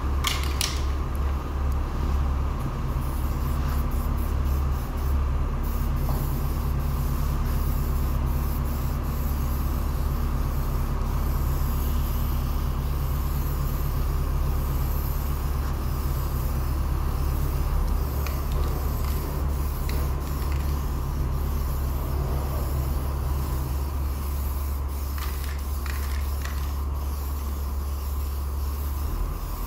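Aerosol spray can hissing on and off as primer is sprayed onto a bus's replaced rear panel, over a steady low hum that is the loudest sound throughout.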